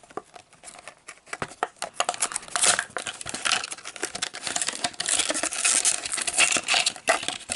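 Plastic blister pack and card backing of a Hot Wheels die-cast car crinkling and tearing as it is opened by hand: a dense run of crackles and rustles, sparse at first and busy from about two seconds in.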